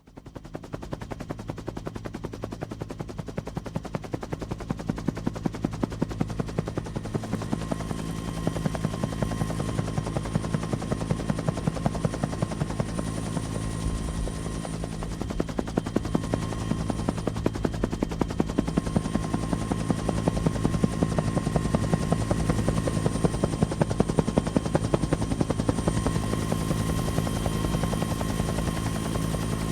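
Helicopter rotor sound effect: rapid, even blade chopping over a steady engine drone, growing louder over the first several seconds and then holding steady.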